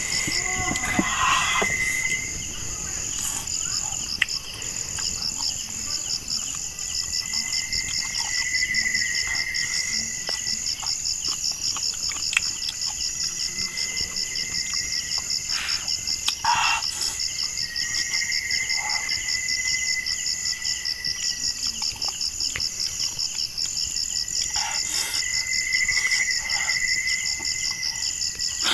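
Night chorus of crickets and other insects: a steady, high, fast-pulsed trill over a constant high hiss, with a lower call that swells and fades every several seconds. Faint short clicks are scattered through it.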